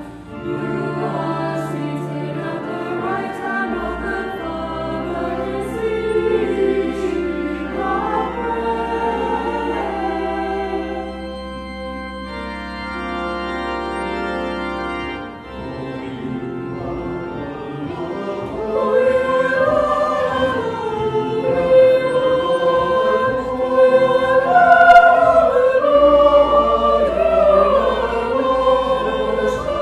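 Voices singing with church organ accompaniment, the organ holding long low notes beneath the melody. The voices break off briefly about twelve seconds in, and the singing grows louder in the second half.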